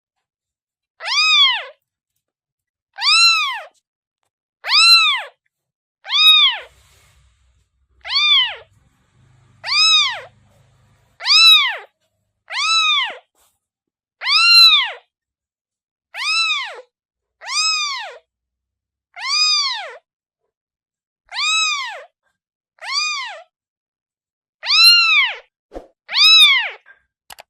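A kitten meowing over and over, about sixteen short high-pitched meows, one every second and a half to two seconds, each rising and then falling in pitch.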